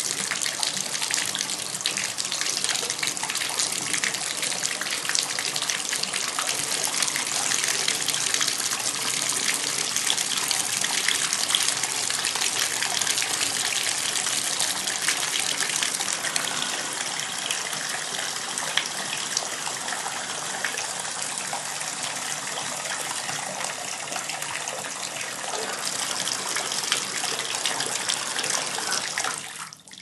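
Bathtub spout running at full flow, water pouring and splashing steadily. The stream eases a little in the second half, swells again briefly, then stops abruptly shortly before the end as the flow is shut off.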